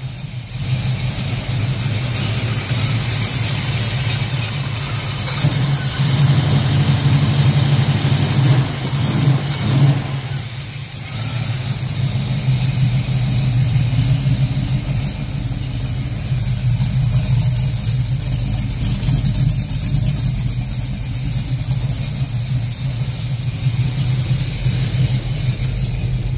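1970 Chevrolet Nova's engine running steadily, getting louder for a few seconds about a quarter of the way in and dipping briefly near the middle. It has just been started from cold.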